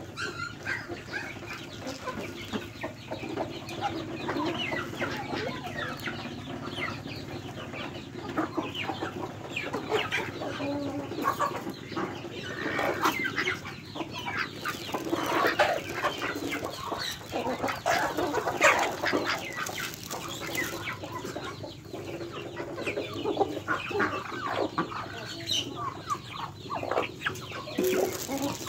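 Mixed flock of chickens and ducks feeding on scattered rice: hens clucking, with many quick taps and clicks of beaks pecking grain from the dirt throughout.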